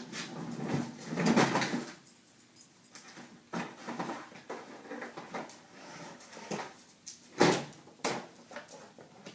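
A dog rummaging among things: irregular rustling, scraping and knocking, with a longer, louder scrape about a second in and a sharp knock about seven seconds in.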